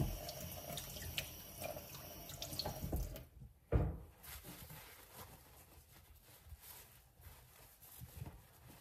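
Kitchen tap running water over Roma tomatoes as they are rinsed, with a sharp knock a little under four seconds in, after which the sound is fainter.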